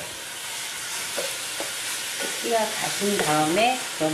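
Cubed beef sizzling in olive oil in a frying pan while a wooden spatula stirs it, with a few light clicks of the spatula against the pan. The beef is being stir-fried only until the pink is just gone.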